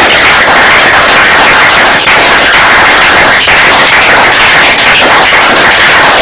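Extremely loud, distorted machine-gun fire sound effect: a dense, unbroken crackle of rapid shots pushed to full volume.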